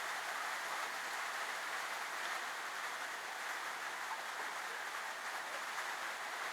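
Steady, even hiss of background noise, with no distinct clicks, tones or other events.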